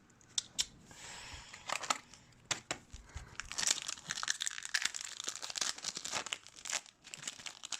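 Plastic-foil hockey card pack wrappers crinkling as they are handled, with irregular sharp crackles and rustles.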